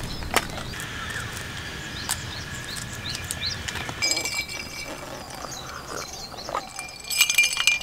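Birds chirping and twittering, with a few light, sharp clicks and clinks.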